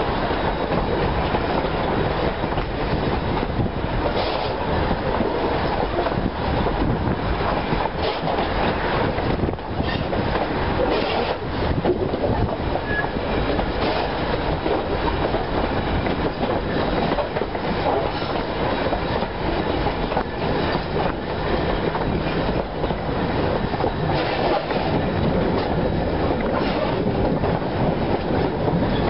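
Wooden passenger carriage of a steam-hauled train running along the line: a steady rumble of wheels on the rails with faint irregular knocks, heard from the carriage's open side.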